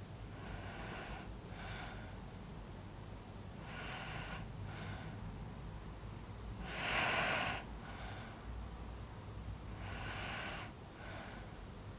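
A sleeping person snoring: four breaths about three seconds apart, each a longer snore followed by a short one. The one about seven seconds in is the loudest.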